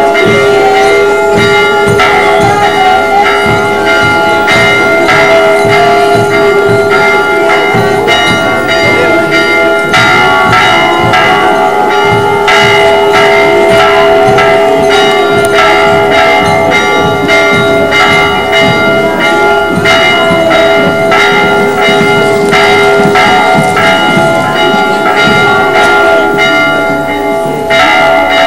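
Church bells pealing, struck over and over in quick succession, their tones ringing on and overlapping.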